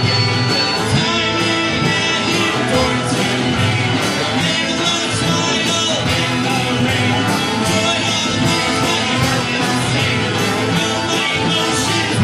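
Live rock band playing: electric guitar, bass and drums at a steady beat, with singing.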